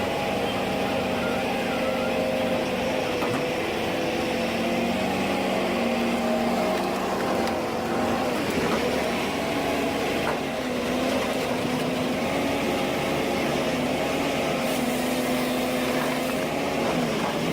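Ponsse Ergo forestry harvester's diesel engine running steadily, its pitch sagging and recovering a few times under changing load, most clearly about nine seconds in and again near the end.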